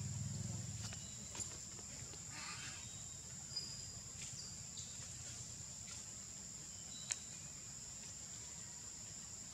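Steady high-pitched drone of insects in the forest, with a low hum underneath that is strongest in the first second. A few faint chirps and sharp ticks cut in, the loudest tick about seven seconds in.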